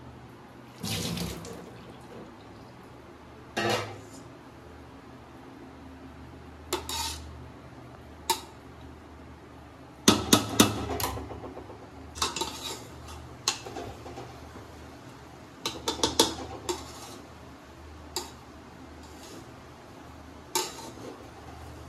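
Metal spoon clinking and scraping against a metal cooking pot, in irregular strokes with a few quick runs of clinks, as food is stirred or dished out.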